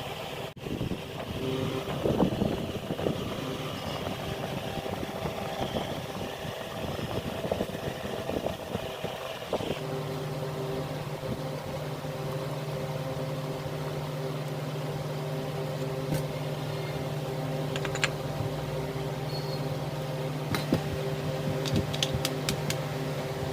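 Workshop clatter and handling noise, then about ten seconds in a steady machine hum starts and holds at one pitch, with a few sharp clicks over it.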